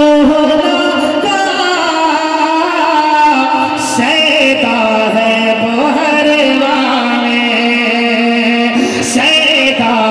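A man singing a naat, an Urdu devotional poem, into a microphone. He sings long held notes that waver and slide between pitches.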